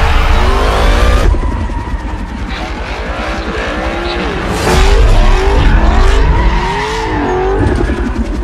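Dodge Challenger muscle car doing a burnout and donuts: the engine revs under a deep rumble while the tyres squeal in a wavering pitch. It is loudest about halfway through.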